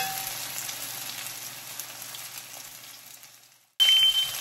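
Cornstarch-coated pork chop sizzling in hot oil in a wok. The sizzle fades and cuts off. Near the end a smoke alarm starts sounding with a high steady beep, set off by the overheated oil.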